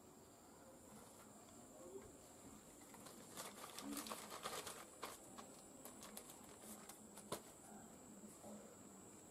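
A clear plastic bag crinkling and rustling as it is handled and a tissue is pulled out of it, a quick run of crackles about three to five seconds in and a few lone crackles after. A faint steady high-pitched tone runs underneath.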